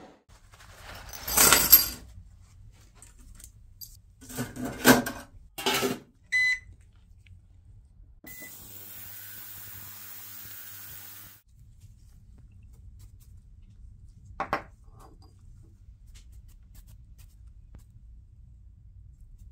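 Steel carriage bolts clatter and clink as they are handled. Then a digital ultrasonic cleaner beeps twice as its buttons are pressed and its tank runs with a steady high hiss for about three seconds before stopping.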